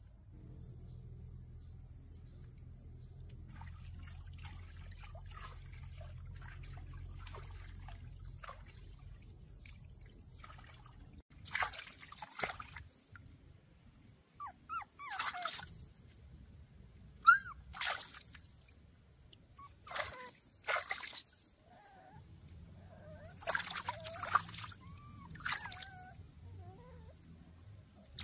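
Puppy whimpering and crying in short, wavering bursts, starting about eleven seconds in after a stretch of low steady rumble and recurring to the end. A single sharp knock a little past the middle is the loudest sound.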